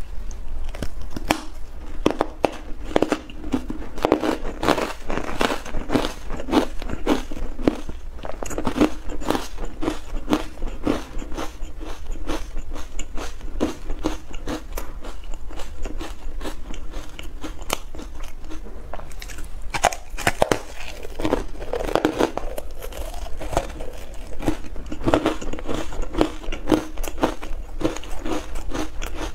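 Ice dusted with matcha powder being bitten and chewed close to the microphone: a dense, continuous run of sharp cracks and crunches, over a low steady hum.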